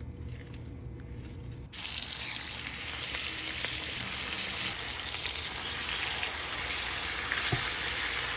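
Frying in a hot skillet of caramelized sugar and oil: quiet at first, then a loud, steady sizzle starts abruptly under two seconds in.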